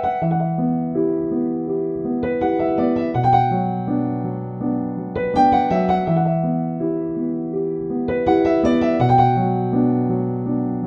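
Calm background piano music: slow chords and a gentle melody, with new phrases struck every two or three seconds.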